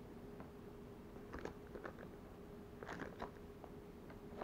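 Faint crinkling of a clear plastic zip-lock bag of soft-plastic grub lures being handled, in two short spells about a second and a half in and again around three seconds, with a few scattered light ticks between.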